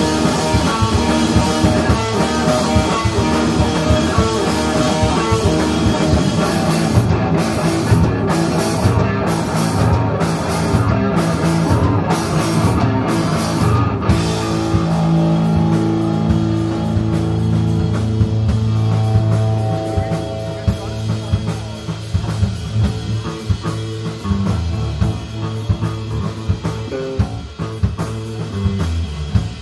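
Live rock band (electric guitar, bass and drum kit) playing an instrumental passage with no vocals. It is full and dense at first with steady cymbal hits, then about halfway through it thins out to long held guitar and bass notes over lighter drumming and gets somewhat quieter.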